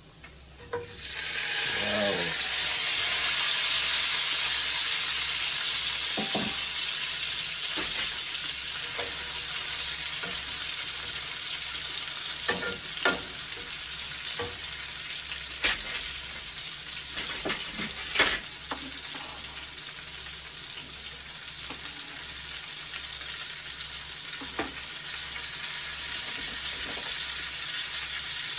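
Food hitting a hot, oiled pot about a second in, then sizzling loudly and slowly dying down as it is stirred. A utensil knocks against the pot several times near the middle.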